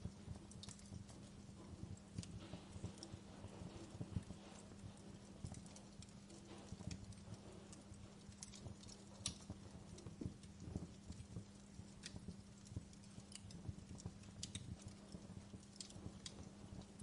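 Wood fire crackling: a dense run of soft low knocks with scattered sharp pops, over a steady low hum.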